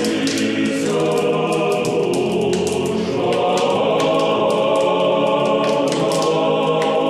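A choir singing slow, sustained chords in the manner of church chant.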